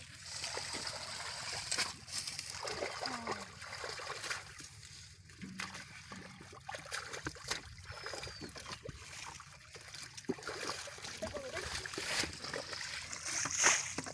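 Shallow muddy water splashing and sloshing in irregular short splashes as people wade and feel through it by hand.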